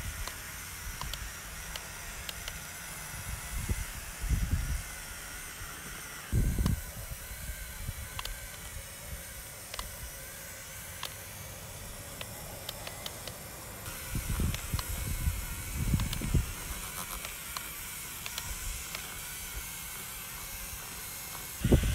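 Small electric motor and gearbox of a radio-controlled off-road truck whining faintly under load as it tows a trailer through mud, over a steady hiss with scattered small ticks. A few short low thumps come and go.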